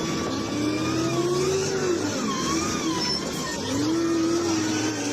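A vehicle engine revving, its pitch rising and falling twice over a steady low hum.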